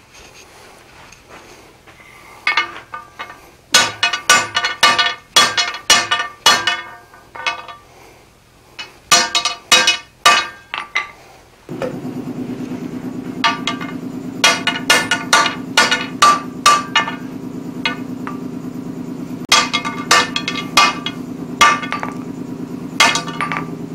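Hot end of a long steel bar slammed again and again onto a heavy steel block on the floor to upset it, each blow ringing, in bursts of several quick strikes. About halfway a steady hum from the gas forge starts, and a hammer rings on the anvil in two runs of quick blows, straightening the bar.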